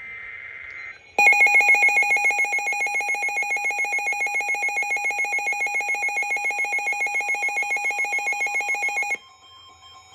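Emergency Alert System flood-warning broadcast: a short buzzy burst of the digital data header, then from about a second in a loud, rapidly pulsing electronic attention tone that runs for about eight seconds and cuts off suddenly, signalling that an alert message follows.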